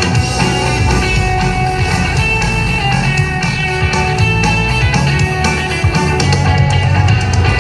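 Loud show music with sustained pitched instrument lines and a guitar-like sound over a steady low end.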